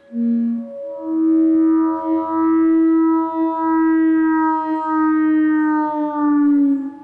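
Theremin music: a short low note, then one long held note with a slight waver that slides down in pitch near the end.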